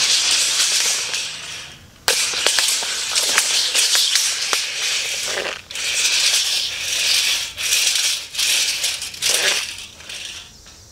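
Retractable tape measure's steel blade rattling and clicking as it is pulled out and run back into its case, in four long runs with short breaks.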